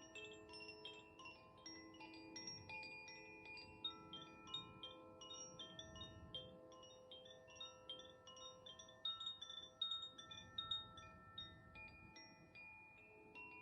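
Koshi Aria chime ringing: its tuned metal rods are struck lightly and irregularly by the clapper, several strikes a second, and the notes overlap into a lingering chord.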